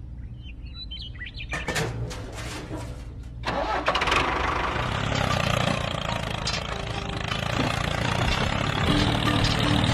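Vehicle engine cranking with short rattling strokes, catching about three and a half seconds in, then running steadily.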